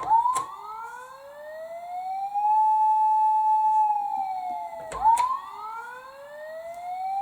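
Toy emergency minicar's electronic siren: a click, then a wail that rises over about two and a half seconds and holds steady. A second click about five seconds in restarts the rising wail.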